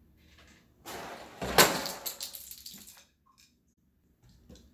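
Rustling, then a cardboard box of dry pasta knocked off a kitchen counter hits the tile floor about a second and a half in, with a clatter of pasta rattling inside that dies away over the next second or so.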